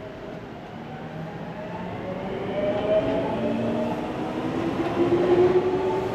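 Seibu 6000 series electric train pulling out past the platform: the whine of its traction motors climbs slowly in pitch as it accelerates, and the running noise grows steadily louder.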